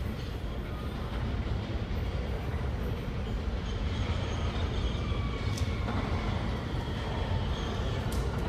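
Siemens-propulsion R160B subway train approaching through the tunnel: a steady rumble of wheels on rail with a faint motor whine in the second half. A couple of sharp clicks, about halfway and near the end.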